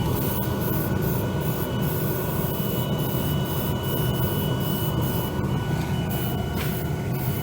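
Shop heater running with a steady drone, overlaid by short, repeated hissing and rubbing strokes from work on the bare metal.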